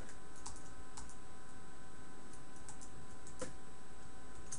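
A few scattered keystrokes and clicks on a computer keyboard, spread out rather than continuous typing, with one louder click about three and a half seconds in. Under them runs a steady background hiss with faint constant tones.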